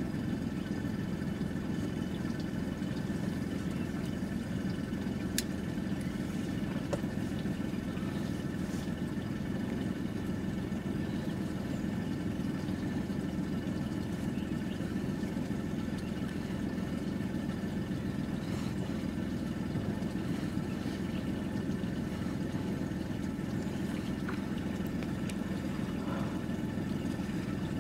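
Small fishing boat's engine idling steadily, an even low hum.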